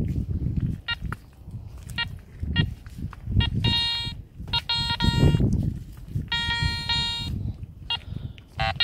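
Metal detectors beeping target tones as their coils sweep over metal in the sand: a few short blips, then longer beeps, the longest about a second. A low rumble of wind on the microphone runs underneath.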